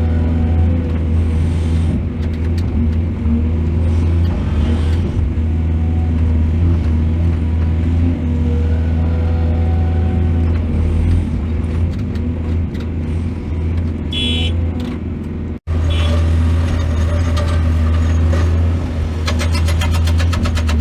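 Heavy diesel engine of a mining excavator running steadily under load. Partway through, a brief high-pitched tone sounds, then the sound cuts out for an instant and resumes; near the end a fast, even ticking or rattling joins in.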